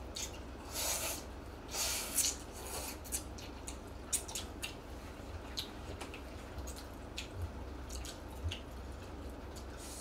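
People slurping jjamppong noodles, two noisy slurps about a second apart, followed by chewing with many short wet smacks and clicks.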